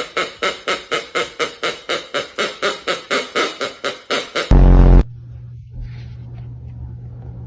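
A music clip with a quick, even beat of about three and a half pulses a second, closed by a heavy bass hit, cuts off suddenly about five seconds in. After that a steady low hum is left.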